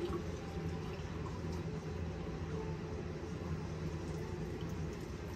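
Kitchen tap running steadily off-camera, filling a glass measuring cup with water.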